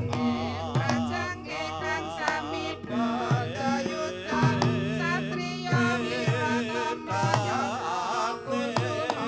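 Javanese gamelan music: hand-drum strokes that drop in pitch come about once a second under steady ringing metallophone and gong-chime notes, with a wavering melody line with heavy vibrato above.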